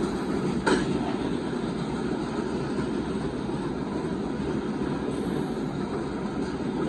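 Loaded open-top freight cars of a Union Pacific rock train rolling past, a steady rumble of steel wheels on rail. One sharp clank sounds less than a second in.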